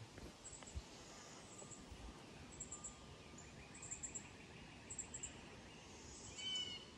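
Faint outdoor ambience with birds chirping: a short, high chirp repeats about once a second, and a louder call comes near the end.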